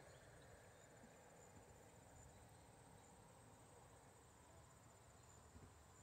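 Near silence with a faint, steady, high-pitched trill of insects such as crickets, over a faint low outdoor rumble.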